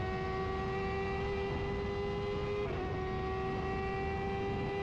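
Onboard sound of an F1000 open-wheel race car's 1000 cc motorcycle-derived engine accelerating at high revs. Its pitch climbs slowly, then drops once a little over halfway through at an upshift, over wind and road rush.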